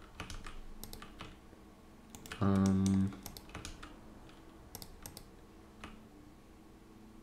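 Computer keyboard keys and mouse clicking in scattered taps while editing in Blender. About two and a half seconds in, a short held vocal hum lasts a little over half a second and is the loudest sound.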